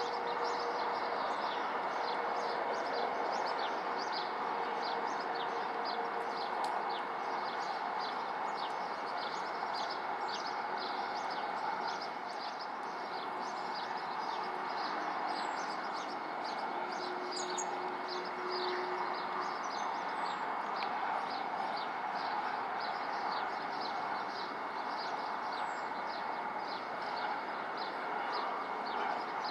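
Small birds chirping over and over, short high notes a couple of times a second, over a steady background hum of distant traffic.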